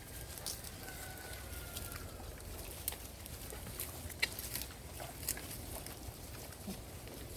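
Native pigs moving about their pen: scattered short clicks and light knocks over a steady low rumble.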